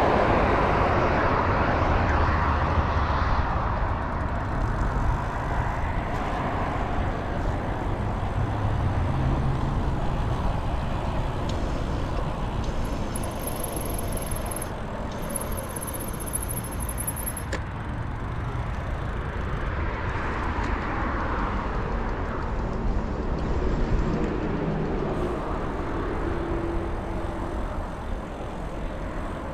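Road traffic from a busy road and wind rushing over the microphone of a moving bicycle. The noise is steady, with cars swishing past at the start and again about twenty seconds in.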